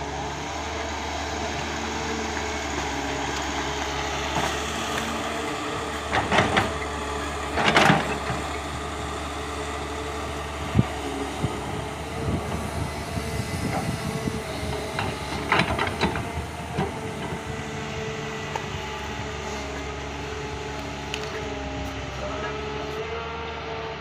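Caterpillar 320D excavator's diesel engine running steadily under hydraulic load while it digs, its pitch shifting slightly as the arm works. Short loud bursts of scraping noise come about six to eight seconds in and again around sixteen seconds, the bucket digging and dumping soil.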